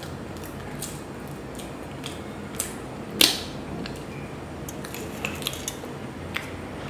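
A spoon clinking and scraping against dessert dishes and a glass jar. Light scattered clicks, one sharp clink about three seconds in, and several quicker clicks near the end as the spoon digs into the jar.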